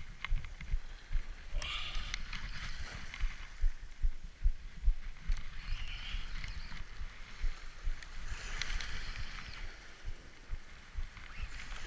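Open-boat ambience: low wind rumble buffeting the microphone, with several hissing washes of water, around 2, 6, 9 and 11 seconds in.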